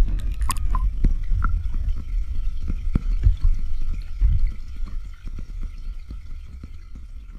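Pool water sloshing and lapping against a camera held at the surface, with many small drip-like pops and clicks over a muffled low rumble, the whole fading away toward the end.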